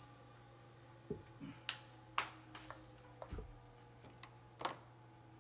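Hand tools being handled on a rubber-matted workbench, including a T-handle Allen wrench picked up: a few scattered light clicks and knocks and one low thump about three seconds in, over a faint steady hum.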